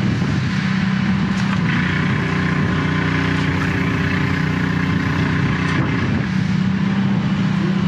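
High-pressure drain jetter's engine and pump running steadily under load, a constant drone with a hiss on top, while the jetting hose works in a blocked, flooded drain.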